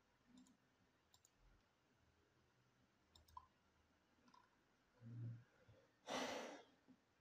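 Faint computer mouse clicks, a few scattered over the first four seconds. About six seconds in comes the loudest sound, a short breathy exhale, just after a brief low hum.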